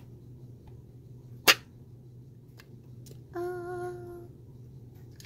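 A hinged metal lip balm tin snapping open with one sharp click, then about two seconds later a short hummed 'mmm' from a voice.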